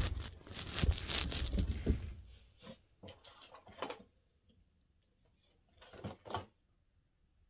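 Rustling of bedding and handling noise as a person shifts about on a bed next to the phone, busy for about two seconds, then a few short, faint rustles and taps.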